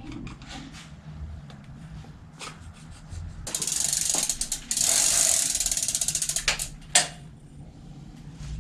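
Bicycle freewheel ticking rapidly as the wheel spins, for about three seconds with a short break in the middle, then a single sharp knock.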